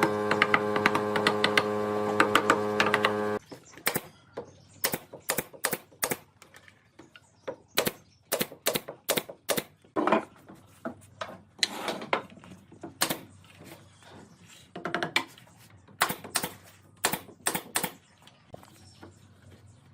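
An electric power tool's motor runs with a steady hum, then cuts off abruptly about three seconds in. It is followed by a long run of irregular, sharp wooden taps and knocks from work on the timber.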